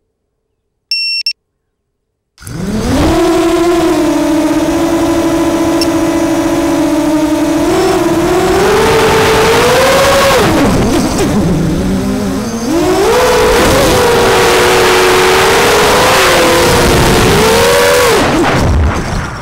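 Four Emax 2208 2000KV brushless motors with 6-inch HQ 6045 props on a ZMR250 FPV quadcopter spinning up about two seconds in, after a short electronic beep, into a loud steady whine. The whine rises in pitch as the throttle goes up, drops sharply for a moment near the middle when the throttle is chopped, climbs back, and falls again near the end.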